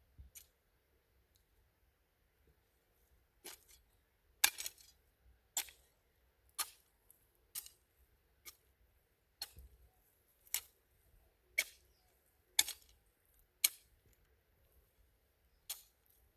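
A hand farm tool chopping into the ground or weeds in a steady rhythm: about one sharp chop a second, starting a few seconds in.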